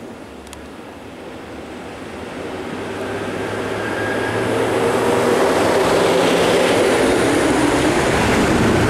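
Diesel bus engine running close by, growing louder over the first five seconds and then holding steady.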